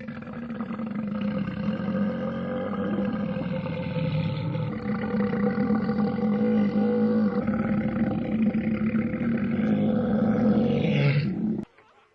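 A man's single, very long belch, held at a steady low pitch for about eleven and a half seconds before it cuts off abruptly.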